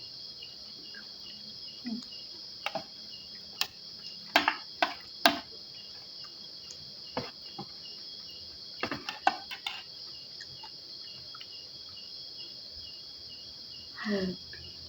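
Spoon clinking against a plate a number of times while eating, in short sharp knocks bunched in the first ten seconds and again near the end. Behind it, crickets chirr steadily and high throughout.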